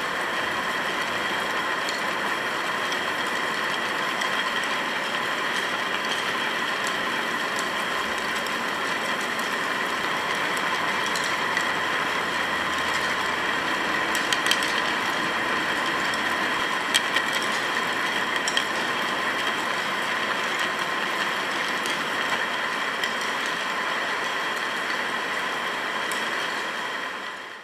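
Dozens of wire-driven white discs of a kinetic sound sculpture spinning and knocking against a hard floor all at once: a dense, even mechanical rattle with a steady whir under it, and a few sharper clicks standing out in the middle.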